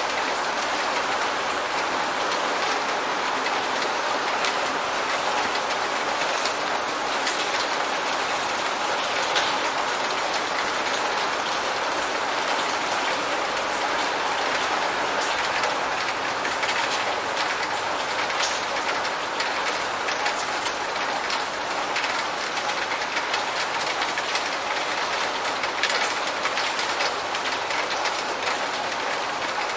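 Steady rain: an even hiss of falling water with scattered sharp drop ticks.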